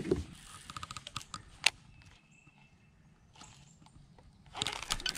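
Close handling clicks and knocks on a GoPro action camera as its battery is changed: a quick run of small clicks, then one sharp click. After a near-quiet stretch, a steady rush of noise comes in near the end.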